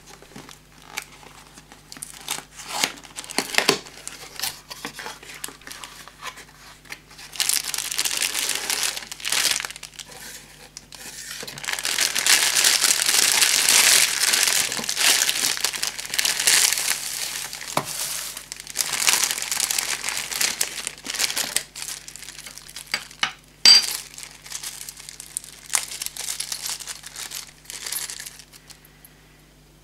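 Cardboard box being opened with light knocks and scrapes, then clear plastic wrapping film crinkling and rustling, densest for about ten seconds in the middle as the wrapped item is handled. A sharp click a little after that, then lighter crinkles of a small plastic bag near the end.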